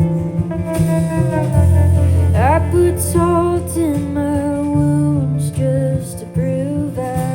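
A song with acoustic guitar and bass, and a singing voice that enters about two seconds in with a note sliding up, then holds wavering sung notes.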